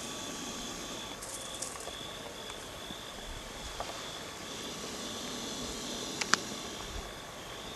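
Outdoor night ambience: a steady, high, continuous insect trill over a background hiss, with a sharp click about six seconds in.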